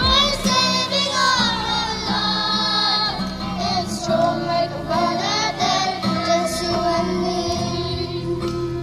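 A group of children and young women singing a song together, a girl's voice leading through a microphone and loudspeaker.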